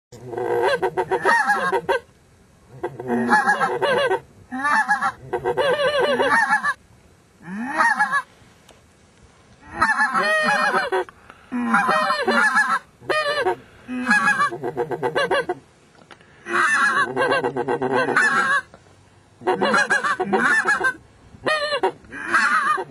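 Greylag goose calls: runs of rapid honks in about a dozen bursts, each up to about two seconds long, with short pauses between.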